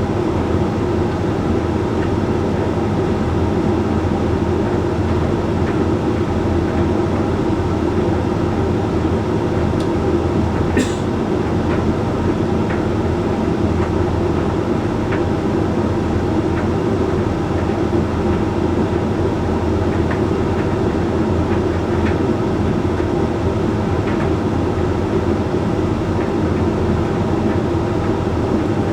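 Hoover Link X Care HLX C10DRGR condenser tumble dryer running mid-cycle on its Whites program, a steady drone of motor, fan and turning drum with the load tumbling inside. A few light clicks come now and then, with one sharper click about eleven seconds in.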